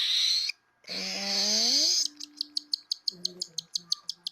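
Baby cockatiel chick giving two raspy hissing cries, then from about halfway a fast, even run of short high clicks, about six a second: the chick's eating sound as it swallows and digests food in its crop.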